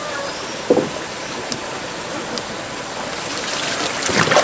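Steady rush of flowing water, with a single knock about a second in. Splashing water grows louder near the end.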